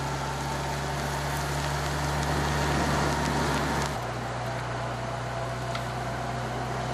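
Steady engine hum from a vehicle following a time-trial cyclist, mixed with wind and road noise on wet tarmac. The hum changes pitch abruptly about four seconds in.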